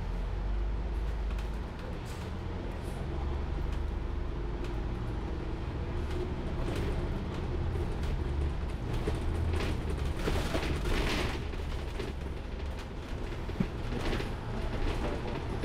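Double-decker bus's engine rumble and road noise heard from inside the cabin while under way, with a louder rush of hiss about ten seconds in.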